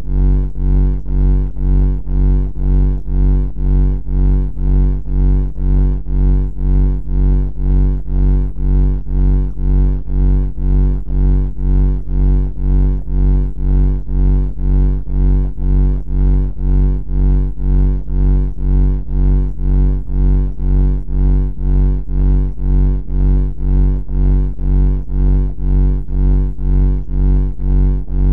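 A deep, buzzing pitched drone that throbs evenly, swelling and fading about twice a second without a break.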